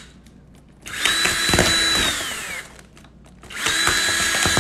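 Ryobi cordless drill running in two bursts, a small bit boring drainage holes through a stack of red plastic party cups. The motor whine drops in pitch as the first burst winds down, and the second starts about three and a half seconds in.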